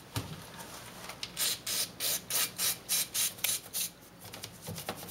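Aerosol can of carburetor cleaner sprayed in a run of about ten short, quick hissing bursts, about four a second, starting a little over a second in and stopping near the end.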